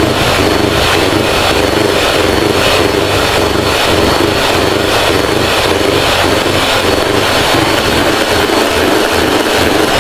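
Electric hand mixer running at high speed, its beaters whipping chilled cream in a bowl: a loud, steady motor sound.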